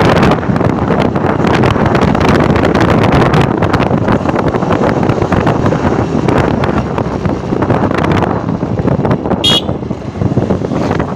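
Wind buffeting the microphone on a moving Bajaj Platina motorcycle, with its single-cylinder engine running underneath. About nine and a half seconds in, a short horn beep sounds once.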